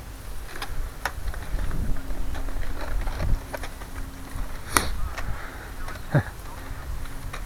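Footsteps on grass and handling knocks on a hand-held camera while walking, with scattered light clicks and one sharp click about two-thirds of the way in.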